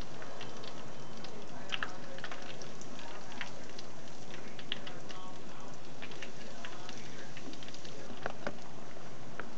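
Breaded cauliflower pieces frying in a small pan of hot oil: a steady sizzle full of fine crackling pops.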